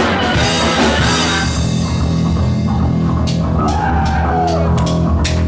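Rock band playing live, with the electric bass line strong and steady under drums and guitar.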